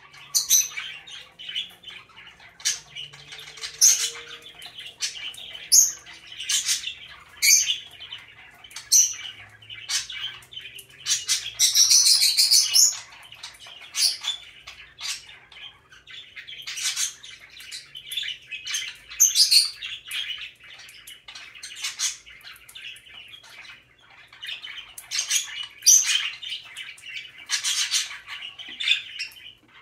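Parrotlet giving many short, high chirps, mixed with quick scratchy clicks of its feet on a clear plastic saucer-style exercise wheel.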